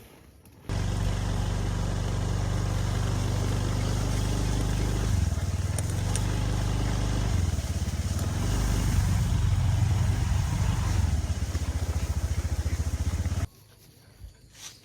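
Motorbike engine running on the move, starting and stopping abruptly, its pitch dropping about five seconds in and picking up again with a pulsing beat in the second half.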